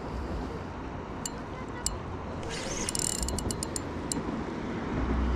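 Spinning reel clicking in scattered sharp ticks, with a short fast run of clicks about two and a half seconds in, as a hooked fish pulls line against the drag. A steady rush of river water runs underneath.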